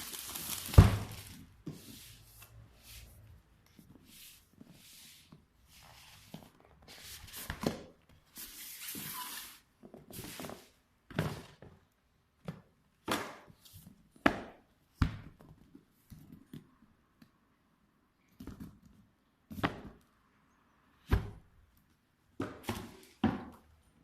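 Handling noise: a run of separate knocks and thunks, the loudest about a second in, with a stretch of rustling partway through, as of packaging and a boxed item being handled and set down on a table.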